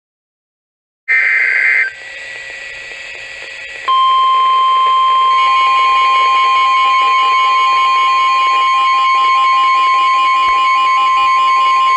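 Emergency Alert System weather alert tones. About a second in, a short, loud burst of SAME digital header tones; then, from about four seconds in, the loud, steady single-pitch NOAA Weather Radio warning alarm tone.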